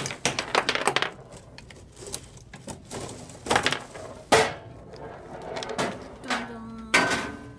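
Foosball table in play: a rapid clatter of plastic players and rods knocking the ball in the first second, then separate sharp knocks as the ball is struck and hits the table's walls, the loudest about four seconds in and another near the end.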